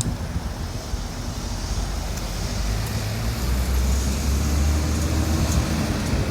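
Road traffic noise, with a vehicle engine's low hum growing louder through the middle as it passes close by.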